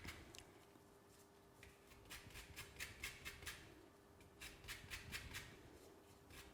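Lemon peel being grated on a hand grater: faint, short scraping strokes in quick runs, taking off just the yellow zest.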